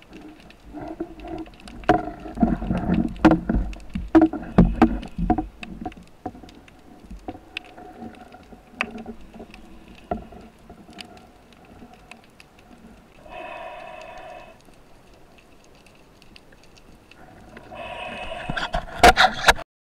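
Sound of a spearfishing dive recorded in the water: gurgling and low rumble with many scattered clicks and knocks, busiest in the first few seconds. Two brief buzzing tones follow, one just past the middle and one near the end, and the sound then cuts off suddenly.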